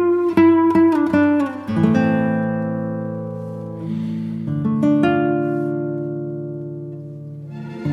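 Background music on acoustic guitar: a quick run of picked notes, then chords left to ring and slowly fade, with quicker picking starting again near the end.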